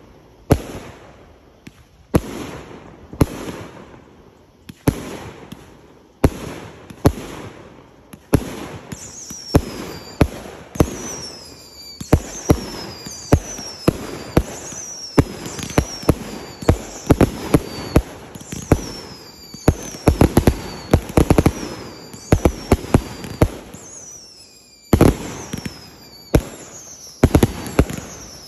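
Multi-shot consumer firework cake firing shot after shot, about one or two sharp bangs a second, with a short falling whistle after many of the shots. The shots come faster toward the end, after a brief lull followed by a loud bang.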